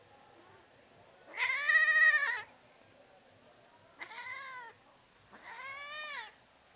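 Tabby cat meowing three times, drawn-out calls that rise and fall in pitch; the first is the longest and loudest, the next two shorter and quieter.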